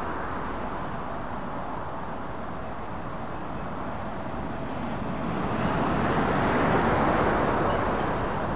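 Boeing 777-300ER's twin GE90 jet engines on final approach: a steady rushing rumble that grows louder about five seconds in as the jet draws nearer, then eases slightly near the end.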